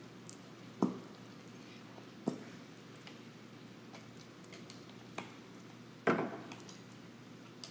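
Light knocks and clinks of a bowl and kitchen utensils being handled, with three sharper knocks: about a second in, after two seconds, and the loudest about six seconds in.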